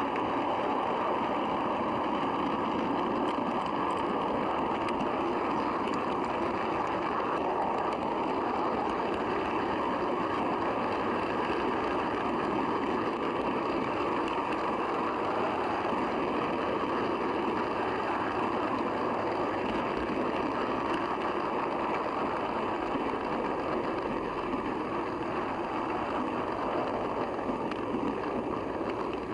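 Steady running rumble of model railway coach wheels on the track, heard from a camera riding aboard the train, easing slightly in level near the end.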